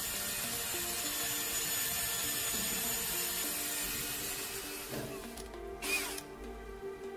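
Electric drill boring a hole into the end of a wooden cylinder, running steadily and then stopping about five seconds in. A short knock follows about a second later.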